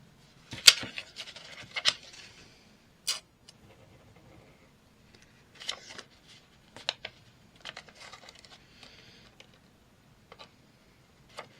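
Paper craft pieces being handled and glued: short rustles and scratchy rubs of paper, with scattered sharp clicks and taps.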